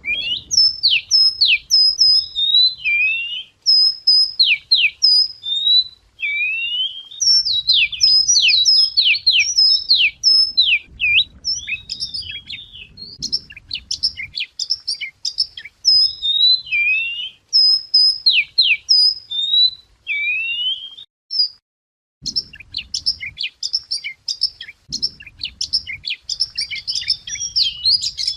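Wagtail singing: a fast, varied song of sharp whistled notes, down-slurs and short trills, phrase after phrase, with a brief pause about two-thirds of the way through. A faint low rumble sits under parts of the song.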